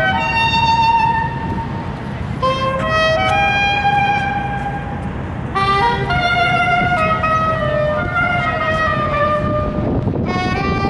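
Soprano saxophone played live on the street: a slow melody of long held notes in several phrases, over the steady noise of city traffic.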